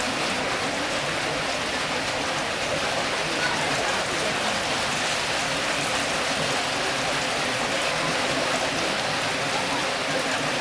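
Steady rushing of a brook's flowing water.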